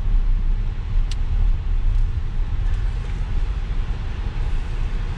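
Steady low rumble of an Audi Q7 on the move, road and engine noise, with one short sharp click about a second in.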